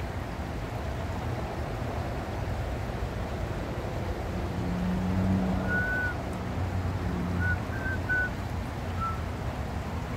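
Steady low outdoor background rumble, with a brief low hum near the middle and five short high chirps in the second half.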